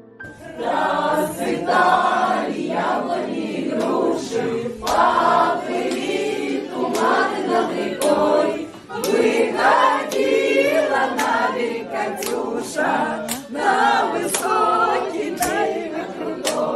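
A group of voices singing a Russian song together, with a sharp beat recurring about twice a second in the second half.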